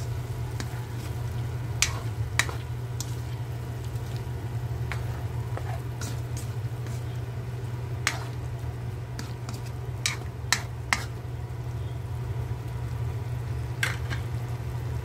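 Chicken and chicken liver frying in a metal wok while a spatula stirs them, the spatula knocking sharply against the pan now and then, over a steady low hum.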